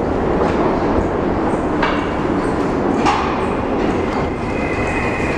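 Subway train running, a loud steady rumble with a couple of short knocks and a high steady squeal coming in past the middle.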